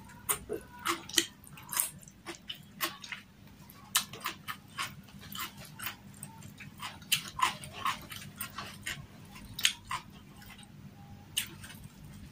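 Close-miked mouth sounds of someone eating by hand: chewing with wet lip smacks and clicks, irregular, several a second, with a short lull a little before the end.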